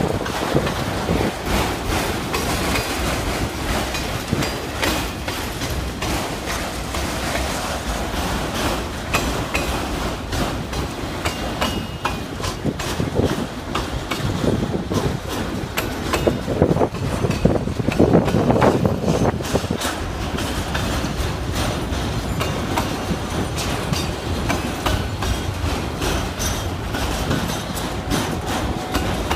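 Autorack freight cars rolling past: steel wheels clacking over rail joints in a steady stream of clicks over the rumble of the train, a little louder for a couple of seconds past the middle.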